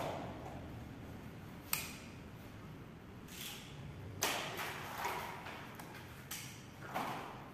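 Manual caulking gun clicking as its trigger is squeezed to push out a bead of caulk: four sharp metallic clicks, spaced one to three seconds apart.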